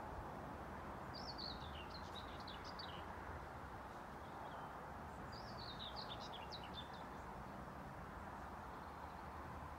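A small songbird singing two short twittering phrases that fall in pitch, one about a second in and another about halfway through, over a steady rushing background noise.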